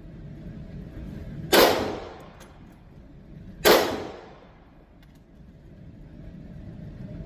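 Two 9mm pistol shots from a MAC 9 DS, about two seconds apart, each loud crack followed by a short echoing tail.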